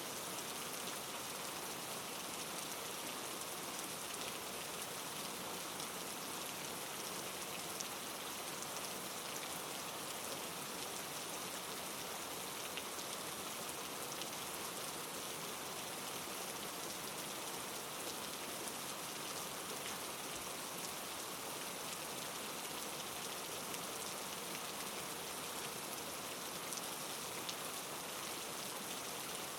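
Steady rain falling, from a rain-and-fireplace ambience track, with a few faint crackles of burning firewood.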